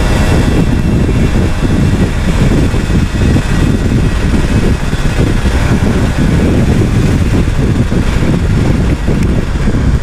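Yamaha F1ZR 110 cc two-stroke underbone motorcycle riding at speed: steady wind rumble buffeting the rider's camera microphone over the running engine.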